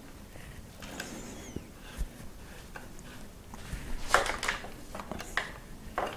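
Hex key turning a bolt into an e-bike mid-drive motor mount: scattered small metallic clicks and scrapes with hand handling, a few louder ones about four seconds in.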